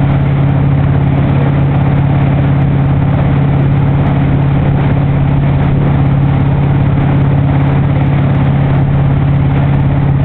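Motorboat engine running steadily at towing speed, a constant low hum with overtones, over the steady rush of water from the wake.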